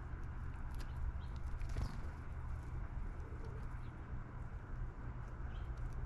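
Backyard bird ambience: scattered short bird chirps over a steady low rumble, with a soft low cooing from a pigeon or dove about three seconds in.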